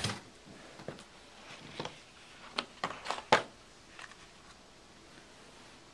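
A rigid cardboard gift box being handled and opened: a few sharp light clicks and taps, the loudest a little after three seconds in, with soft rustling at the start.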